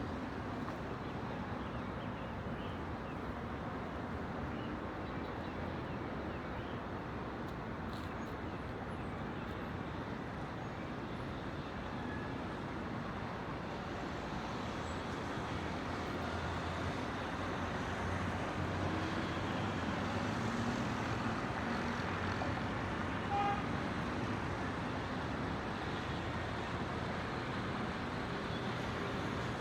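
Distant city traffic as a steady hum of many vehicles, swelling a little past the middle as heavier traffic goes by. A single short, clear note sounds about three-quarters of the way through.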